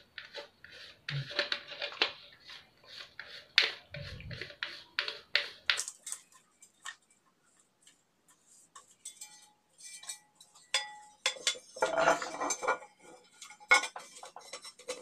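Plastic toilet flush-valve fittings being handled: a rapid run of small clicks and clatter as the valve's plastic lock nut is worked off, then a pause and scattered knocks of plastic against the ceramic tank as the valve is fitted into its outlet hole.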